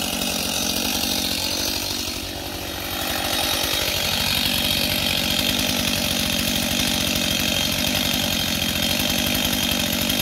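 STIHL MS 251 Wood Boss chainsaw's two-stroke engine idling steadily after a fresh start, the saw sitting on the ground. The level dips briefly about two seconds in, then the engine settles back to an even idle.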